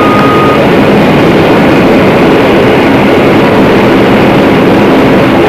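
Steady loud engine drone of a transport aircraft in flight. A thin steady tone runs over it and stops about half a second in.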